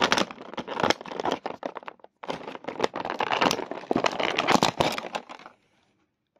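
Plastic toy packaging crinkling and crackling as it is handled, in two spells with a short break about two seconds in.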